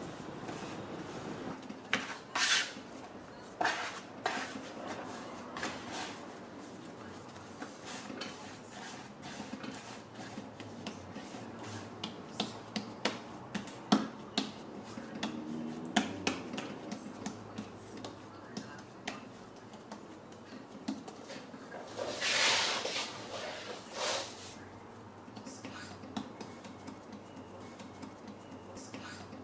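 Hands kneading and shaping soft bread dough on a floured wooden board: soft taps, pats and rubs, with a few louder, longer strokes near the start and again about three quarters of the way through.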